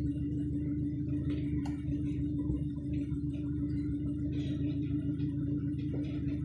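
Steady low hum with one constant tone and a few faint ticks, from a Whirlpool washer running its diagnostic test cycle. The water-inlet solenoid valves are not yet heard opening.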